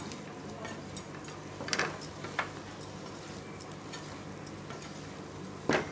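Wooden spatula scraping and knocking in a kadai as idli pieces in thick masala are tossed slowly, a few short strokes with the loudest near the end, over a steady low hum.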